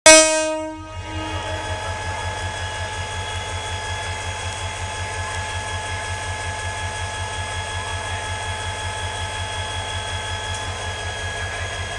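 Metre-gauge MEI15 diesel-electric locomotive idling, a steady low throb with a faint constant whine. It follows a loud horn blast that dies away within the first second.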